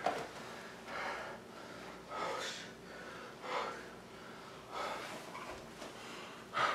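A man breathing hard and unevenly, about one sharp breath a second.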